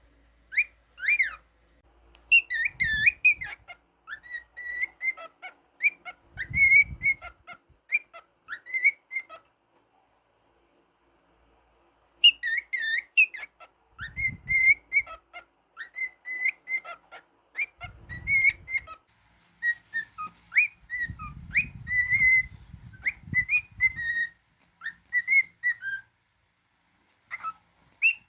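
Cockatiel whistling: phrases of short whistled notes and quick up-and-down glides around one high pitch, broken by a pause of about two seconds a third of the way through. Low dull bumps sound underneath at times.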